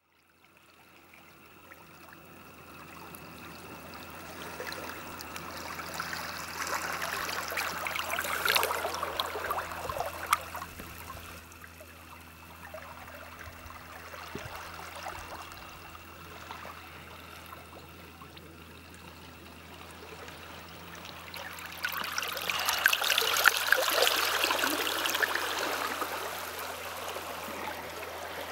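Gentle sea water lapping and washing against rocks at the shoreline, fading in from silence and swelling twice before ebbing, over a faint steady low hum.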